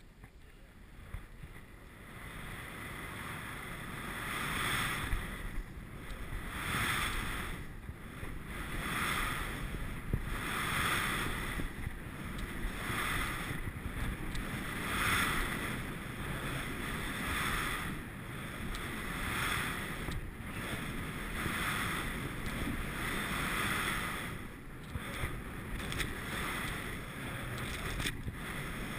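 Skis carving turns through powder snow: a rushing hiss that swells about every two seconds, once per turn, starting a few seconds in. Under it, a steady low rumble of wind on the microphone.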